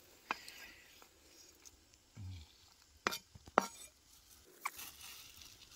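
Faint rustling broken by a few sharp clicks, the two loudest about three seconds in and half a second apart.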